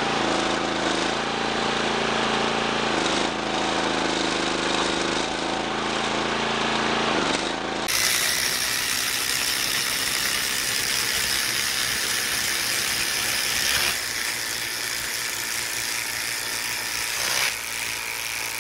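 The engine powering a hydraulic log splitter runs steadily, its pitch dipping under load now and then. About eight seconds in the sound changes abruptly to cordless impact drivers hammering as they drive long screws into a tree stump.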